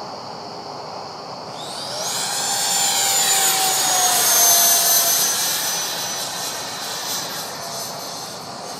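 Radio-controlled Freewing Gripen model jet's 80 mm nine-blade electric ducted fan whining as the jet makes a close pass. The whine swells about two seconds in, drops in pitch as it goes by, is loudest around the middle, then fades.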